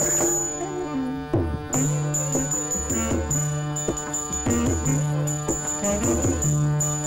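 Background music in an Indian style: hand-drum strokes over a held drone, with a melody that slides between notes.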